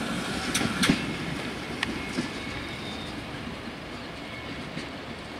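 A freight train of oil tank wagons rolling away on the rails: a steady rumble of wheels with a few sharp clicks over rail joints in the first half. The sound fades as the train recedes.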